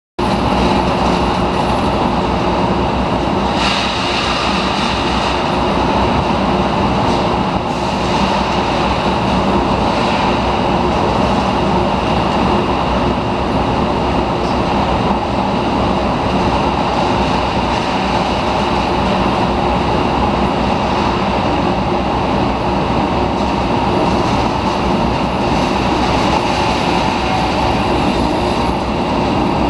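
Rotary furnace running: a loud, steady mechanical rush of noise with faint humming tones underneath, and brief brighter swells around four, seven and ten seconds in.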